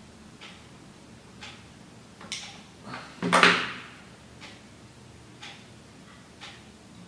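Faint steady ticking about once a second, with one louder, brief rustle about three seconds in.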